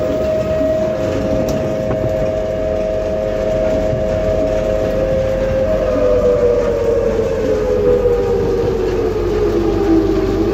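Whine from the vehicle the camera rides in: a steady high tone that falls in pitch over the last four seconds.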